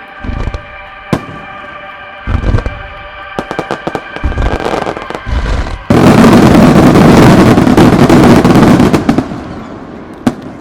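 Star mine fireworks barrage: scattered shell bursts come closer together, then merge into a dense, continuous volley of explosions for about three seconds from roughly six seconds in, before dying away.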